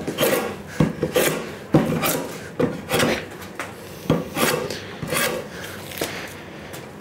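Scrub plane taking quick repeated strokes along a board's edge, roughly two a second, each a short rasping cut of the iron through the wood. It is hogging off waste to bring the board down to a marked width line.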